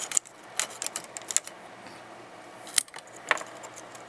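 Irregular metallic clicks and clatter as a Lionel 2-4-2 Scout toy locomotive is handled and set down on three-rail tinplate track, its wheels knocking against the rails. The sharpest clicks come a little before the three-second mark.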